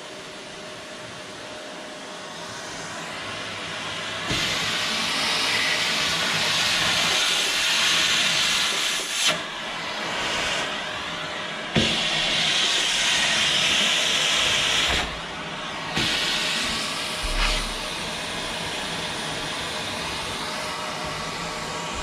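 Canister vacuum cleaner running, its rushing air swelling louder and brighter for two stretches of several seconds as the nozzle works nearby. A few sharp knocks come in between.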